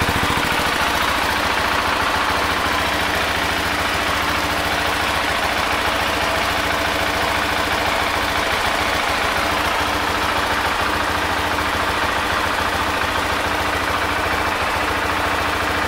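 KTM 690 SMC R supermoto's single-cylinder engine idling steadily.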